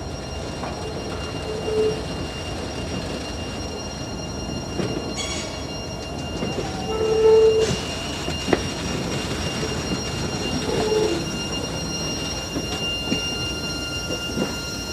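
Slow-moving train's rear cars, a passenger car and a caboose, rolling past on steel wheels with a steady rumble. The wheels squeal briefly three times, loudest about seven seconds in, with a sharp clank just after.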